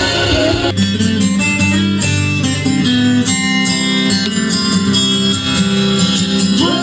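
Acoustic guitar strumming steady chords, after a sung phrase ends in the first second.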